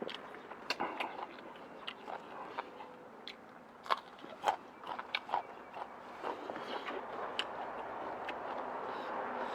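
A person chewing a mouthful of noodles and stewed beef, with scattered wet mouth clicks and smacks.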